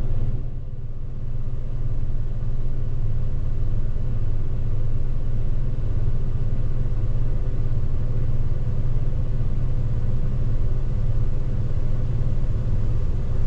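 Gleaner S98 combine running while harvesting corn: a steady low drone heard from inside the cab, with a brief dip in loudness about half a second in.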